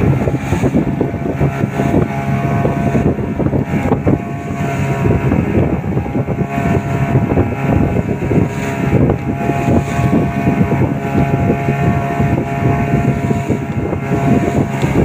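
Motorboat engine running steadily at speed, a constant low hum over the rush and splash of water against the hull, with wind noise on the microphone.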